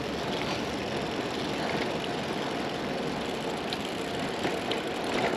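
Steady road and traffic noise heard while riding a bicycle along city streets, with a few faint ticks.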